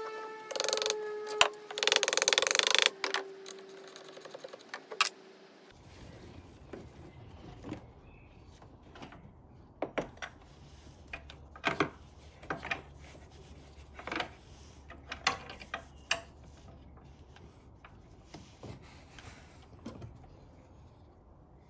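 A car battery being worked into its tray and its hold-down clamp refitted: scattered clicks, knocks and scrapes of plastic and metal. In the first few seconds there are two loud, rough scraping bursts, with a held tone sliding slightly lower under them that stops about five seconds in.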